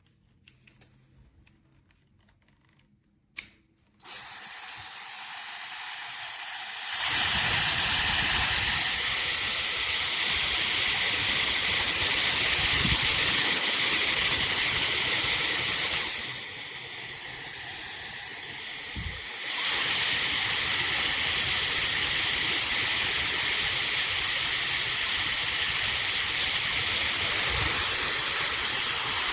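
Beurer hair dryer switched on with a click and running on its low setting, then switched up to its high setting a few seconds later, giving a steady rushing hiss of air and fan. About midway it drops back to low for roughly three seconds, then runs on high again.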